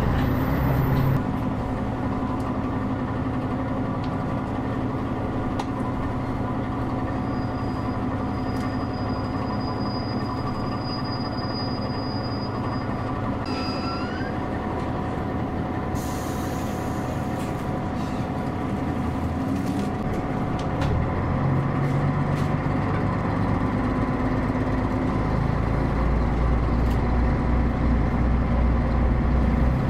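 Diesel railcar on the Kitakami Line running, with a steady engine hum and rail noise. About two-thirds of the way in the engine note grows louder and deeper, as under power.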